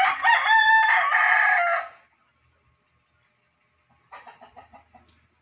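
A rooster crows once, a loud call about two seconds long. It is followed near the end by a quick run of short clucking calls.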